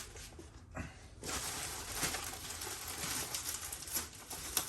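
Rustling and crinkling of packaging as a boxed motorcycle exhaust is unpacked, starting about a second in, with a sharp click near the end.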